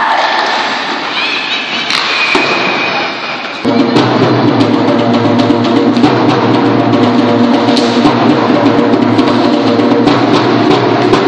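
Music with drums and a steady beat playing in an ice rink, starting abruptly about four seconds in over the rink's general noise, with sharp clicks scattered through it.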